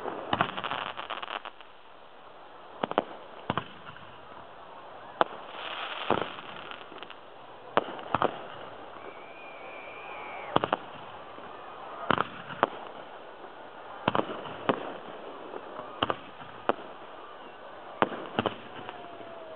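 Aerial fireworks shells bursting in a steady run of sharp bangs, one every second or two and often in close pairs, with crackling from the stars after some of the bursts.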